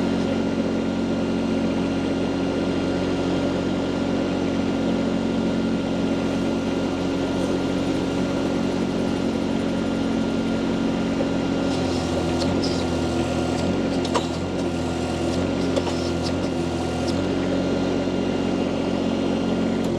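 A mini skid steer loader's engine runs steadily while its hydraulic flow to the sweeper attachment is turned down. About two-thirds of the way through, the engine note wavers for a few seconds, with a few light clicks.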